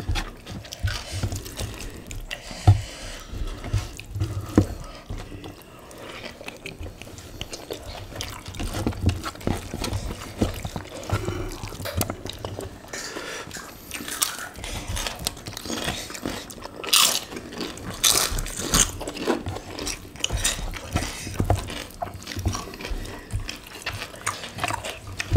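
Close-miked eating sounds: wet chewing and lip smacking as two people eat rice and chewy squid in chilli sambal with their hands, with the squish of fingers mixing rice and scattered small clicks. A few short hissing sounds come in the second half.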